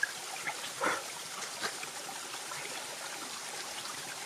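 Small waterfall and stream running steadily, with a few brief clicks over the flow, the loudest near the start and about a second in.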